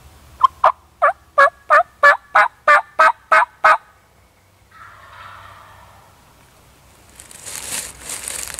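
A run of about ten evenly spaced turkey yelps, about three a second, each note dipping and rising in pitch. A hissy rustling noise follows near the end.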